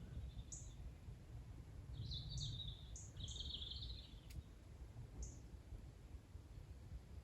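Small songbirds calling: scattered short, high chirps and two brief trilled phrases about two and three seconds in, over a faint low rumble.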